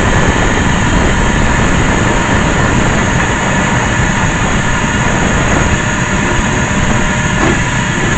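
Vacuum cleaner running steadily: a loud, even whooshing motor noise with a faint high whine.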